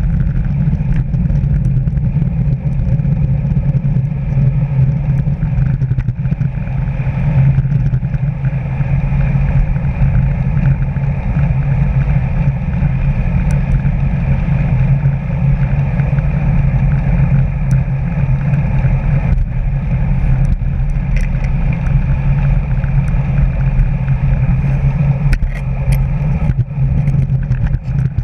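Steady rush of wind and tyre noise from a road bicycle ridden at about 20–25 mph, a deep unbroken rumble on the camera's microphone. A few faint clicks or rattles come near the end.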